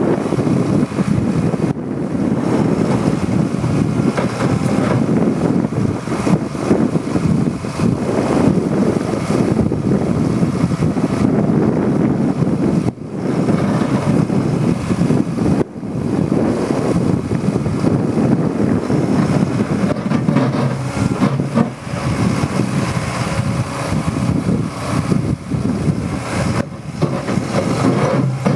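Liebherr 914 Compact excavator's diesel engine running steadily under work, with two short drops in level about halfway through.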